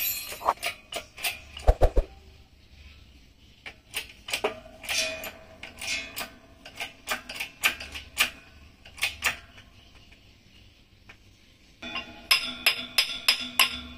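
Metal parts and tools clinking and clattering as they are handled on a workshop shelf: scattered sharp knocks, then a quick run of clinks near the end.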